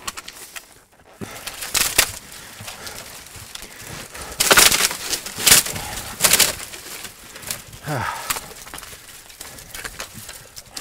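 Dry branches and brush crackling, snapping and scraping as people push through a dense thicket on foot, with a few loud crashes around the middle. About eight seconds in there is a person's short groan that falls in pitch.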